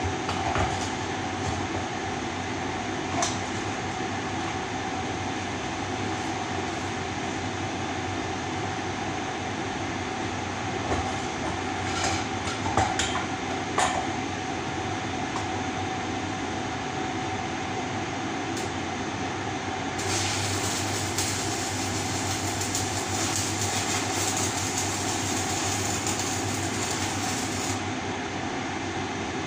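Electric arc welding on a metal pump pipe: the arc crackles and buzzes for about eight seconds starting about two-thirds of the way in, then stops suddenly. Before it, a steady workshop hum with a few sharp metal knocks as the pipe is handled at the vise.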